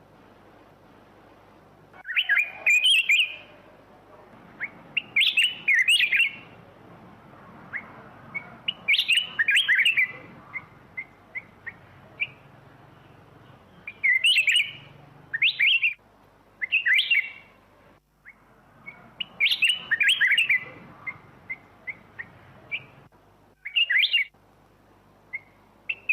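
Black-crested bulbul singing: short, quick warbled phrases repeated every few seconds, with single short chirps in between.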